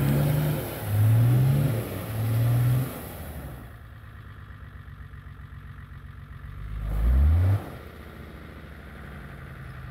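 Nissan SD33T straight-six turbodiesel of a 1982 Nissan Patrol revving in three rising bursts, then dropping to idle, with one more short rev about seven seconds in that cuts off sharply before it settles back to idle. The engine is pulling the Patrol through deep snow on rear-wheel drive only.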